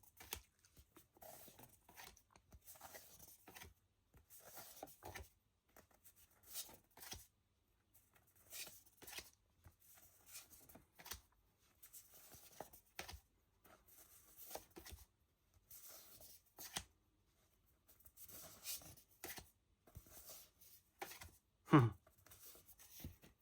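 Thick smooth art cards being handled and leafed through one at a time: soft, irregular rustles and light taps of card on card, roughly one every second or two.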